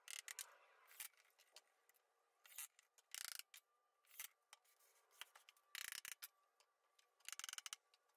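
Faint, intermittent short bursts of bench assembly noise: rubber mallet taps on the wooden chair parts and brief runs of a cordless drill/driver setting screws, with clusters of quick taps near the end.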